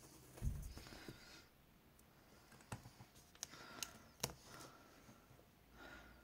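Quiet handling of a roll of washi tape on a paper planner page. There is a soft thump about half a second in, then scattered sharp clicks and brief rustles of tape and paper.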